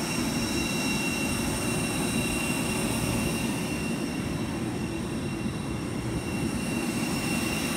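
Jet airliners on the airport apron: a steady low rumble with several high, even whining tones over it, typical of a parked jet's auxiliary power unit or idling engine.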